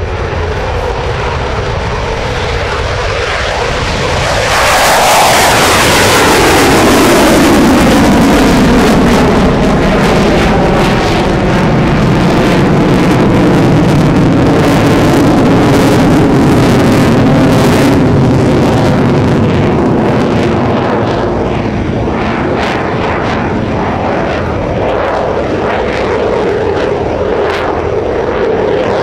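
Eurofighter Typhoon's twin EJ200 jet engines roaring past. The noise swells sharply about five seconds in and the pitch falls as the jet goes by, then it stays loud with a ragged crackle and eases slightly near the end.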